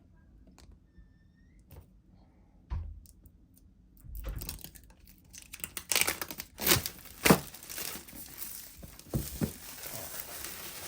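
Packaging on a laptop box being torn open and crinkled: a few light taps, then from about four seconds in a run of ripping and crinkling with several sharp rips partway through.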